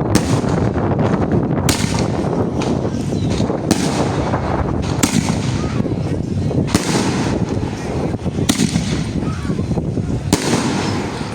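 Fireworks cake of 2-inch shots firing continuously: a dense rumble of launches and crackle, with a sharp loud burst about every one and a half to two seconds.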